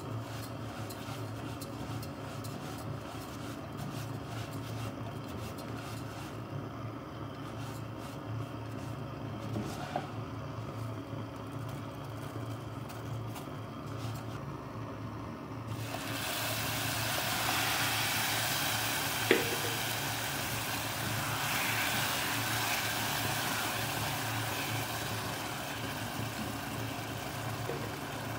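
Dry rice grains scraped and stirred with a plastic slotted spatula in a nonstick pot, over a steady low hum. About halfway through, a sudden steady hiss starts as tomato broth goes onto the hot toasted rice and sizzles, with a single sharp knock a few seconds later.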